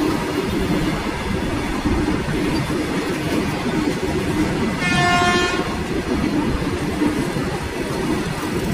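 Covered freight wagons rolling past close by: a steady rumble of steel wheels on rail. About halfway through, a train horn sounds one short note.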